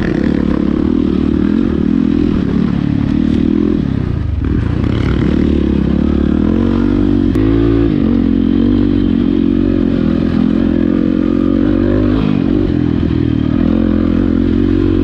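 Enduro dirt bike engine running under load on a trail ride. Its pitch dips and climbs back a few times as the throttle is rolled off and on, with some clatter mixed in.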